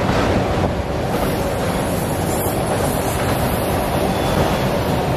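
Autorack cars of a freight train rolling past at speed, their steel wheels on the rails making a steady, even noise.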